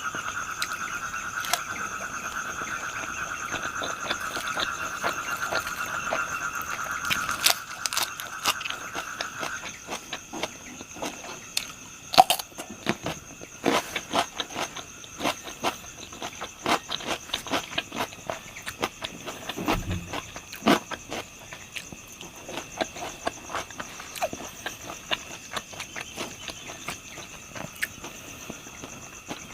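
Irregular crisp crunching and clicking of chewing on fried pork intestines, with crickets or other insects chirping steadily in the background; a lower insect chorus stops about a third of the way in.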